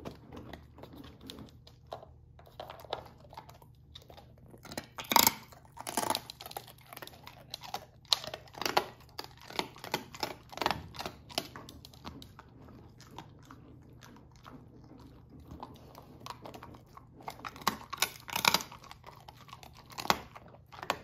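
Great Pyrenees puppy chewing and crunching on bits of a large bone, in irregular bursts of crunches. They are loudest about five seconds in and again near the end, with a quieter pause in the middle.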